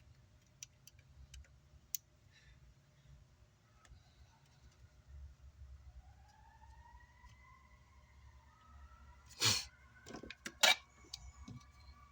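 Faint clicks and two sharp knocks of small tools or parts being handled on a workbench, the second knock the loudest. From about halfway through, a faint siren wails in the distance, its pitch rising and then holding.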